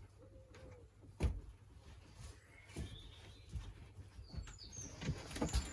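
Faint birds chirping, with one sharp knock about a second in and a few lighter clicks near the end from handling the washing machine's hose fittings.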